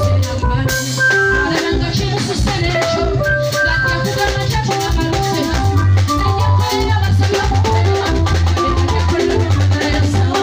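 Loud, upbeat band music over a PA: a steady beat with a busy shaker-like rattle, a bass line, and melodic guitar or keyboard lines.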